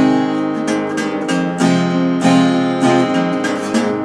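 Acoustic guitar strumming in a steady rhythm, the chords changing a few times: the instrumental intro to a song, before the vocals come in.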